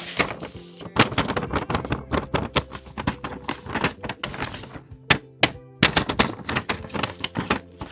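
Hands handling paper craft pieces on a tabletop: a quick, irregular run of sharp taps and thunks, several a second, over background music.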